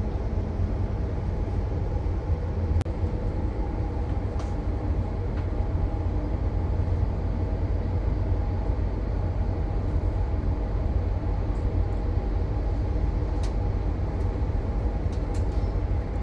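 Electric intercity passenger train running at steady speed: a continuous low rumble with a faint steady hum and occasional light clicks.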